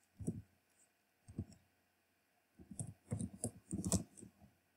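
Computer keyboard typing: two single keystrokes about a second apart, then a quick run of keystrokes near the end.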